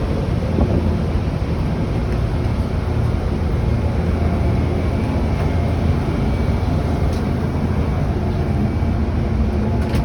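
Steady low vehicle rumble, even throughout, with a faint thin tone in the middle of it.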